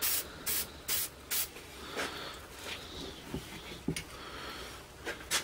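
Aerosol spray-paint can hissing in short bursts, about two a second, with fewer bursts in the middle.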